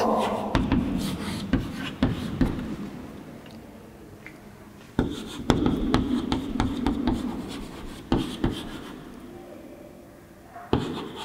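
Chalk writing on a blackboard: quick taps and scratchy strokes in spells, with short quieter pauses between words.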